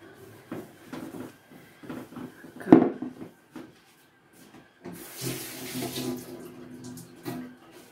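Paper towel rubbing and rustling over a table top with small knocks, then a loud knock about two and a half seconds in as a glass jug is set down on the table. A few seconds of running water follow from about five seconds in.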